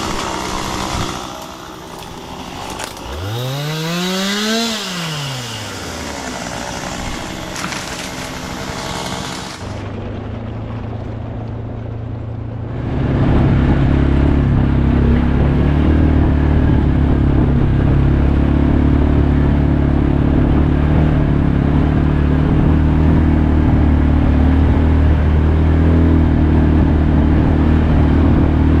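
Chainsaw running and revving up and down for the first several seconds. After a break, a small engine starts running steadily at an even speed and keeps going.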